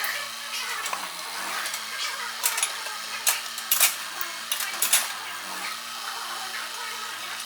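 Excavator engine running with a steady hum, while sharp clinks and cracks of demolition debris break in several times around the middle.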